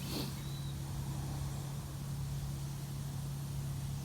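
A steady low machine hum with an uneven low rumble of wind on the microphone. A brief faint high chirp comes right at the start.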